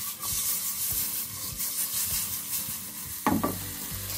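Chicken breast strips sizzling in hot olive oil in a non-stick frying pan, with a steady hiss and many small crackles. One sharp knock about three seconds in.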